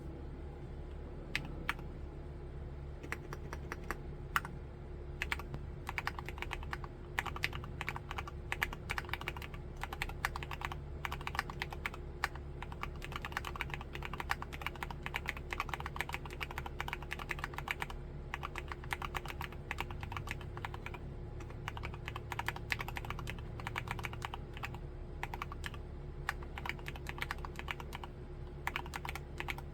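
Typing on an MMstudio Class80 R2 mechanical keyboard with Cherry MX2A Black linear switches. A few single keystrokes come first, then steady fast typing of several keys a second.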